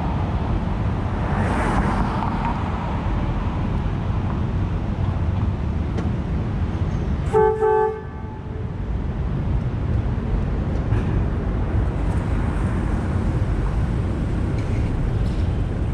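Streetcar running along the street with a steady rumble; about seven seconds in, a horn gives two short toots.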